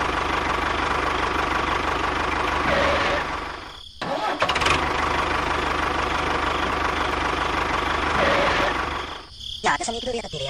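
Tractor engine running steadily, rising briefly and then cutting out twice, once near the middle and once near the end. In the last second, crickets start chirping.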